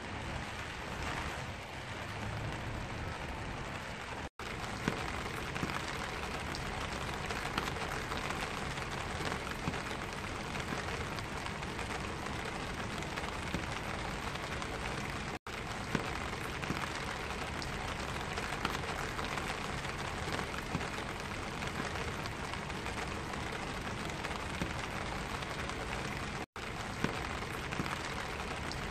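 Steady rain falling on a black vinyl umbrella, heard from beneath the canopy, with scattered louder single drops. The sound cuts out for an instant three times.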